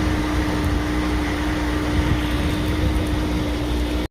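Small outboard motor running at a steady speed while the sailboat motors out, a constant hum with one steady tone over a low rumble and rushing noise.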